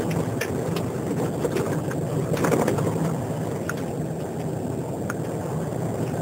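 Vehicle interior while driving: a steady engine hum and road rumble, with a few short clicks or rattles from the cabin.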